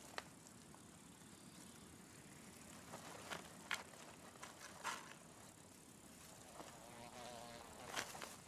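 Faint outdoor ambience of buzzing insects, with a wavering buzz passing near the end, and a few scattered small clicks and rustles.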